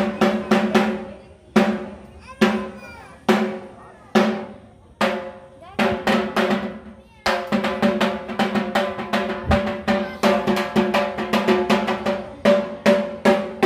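A drum beaten with sticks, each stroke ringing at the same pitch. The strokes come slow and uneven at first, then about halfway through settle into a fast, steady beat.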